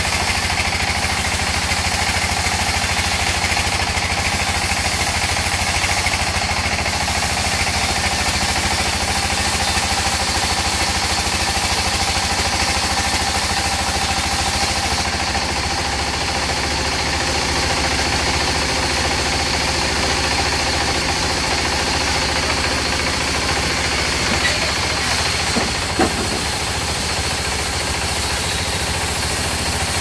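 Large band sawmill running steadily, its wide blade cutting a rain tree log into slabs, with a constant low machine hum under the sawing. One sharp knock late on.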